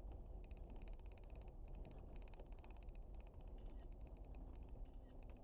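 A 4x4 rolling slowly over a gravel track, heard faintly: a steady low rumble with a fast run of light clicks and rattles.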